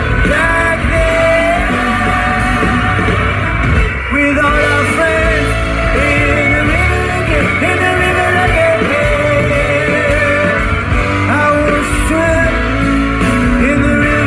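Live band playing a rock song, a singer's voice over guitar and a steady low bass line.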